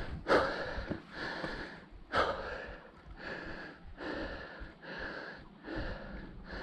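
A person panting hard in a steady rhythm of quick, heavy breaths, out of breath from a steep uphill climb.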